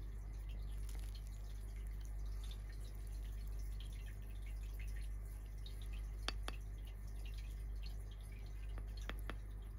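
Kitten licking and chewing sticky natto off wooden chopsticks: a run of small wet clicks and smacks, with a few sharper ones in the second half, over a steady low hum.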